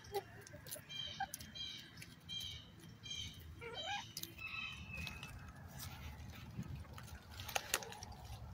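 Faint, high bird chirps repeated about twice a second, stopping about halfway through, with a few light taps from chickens pecking at a piece of sweet potato. A low rumble builds in the second half.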